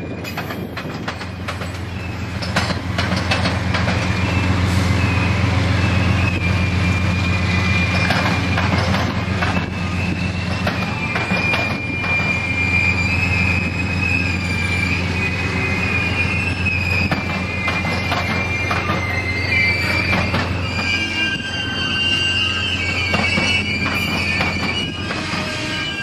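Amtrak passenger cars rolling slowly, wheels squealing in several high wavering tones over a steady low rumble. Irregular clicks and clacks come from the wheels over the rail joints.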